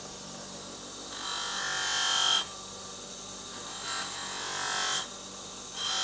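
Bench buffing wheel running steadily, with three louder swells of hiss and a high ring as the axe head's edge is pressed against it to polish off the burr left by sharpening. The first pass builds to the loudest and ends about two and a half seconds in; the last begins near the end.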